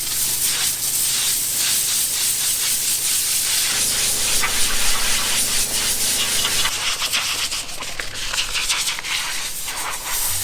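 Compressed-air blowgun hissing loudly and steadily as it blows accumulated harvest dust and chaff out of a combine harvester's radiator.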